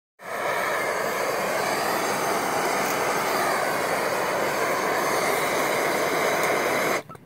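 Bernzomatic propane hand torch burning with a loud, steady hiss as its flame heats a ball. The hiss stops abruptly about seven seconds in.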